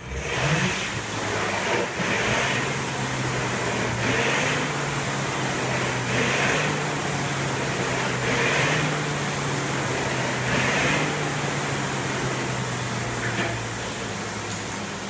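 Rowperfect indoor sculler's flywheel spinning inside its quieter flywheel cage while being rowed: a steady low hum, with a swell of noise on each stroke about every two seconds. The hum fades near the end as the strokes stop.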